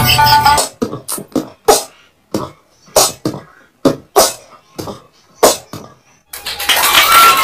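A small dog barking in a run of about a dozen short, sharp barks at uneven spacing. Background music ends just after the start and comes back near the end.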